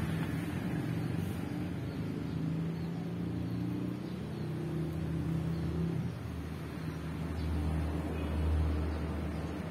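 Street traffic: vehicle engines running and passing, with a deeper engine hum growing louder about seven to nine seconds in as one vehicle passes close.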